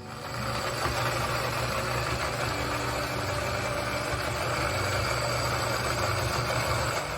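Electric blender switched on and running steadily for about seven seconds, grinding pieces of ginger.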